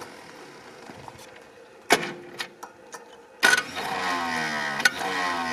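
Sharp metallic clanks and small ticks from hand work on the Willys jeep's engine under the open hood. The second clank is followed by a pitched mechanical sound that slowly falls.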